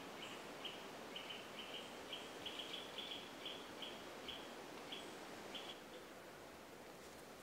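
A bird calling in woodland: a run of short, sharp notes, two or three a second, that stops about six seconds in, over faint outdoor background hiss.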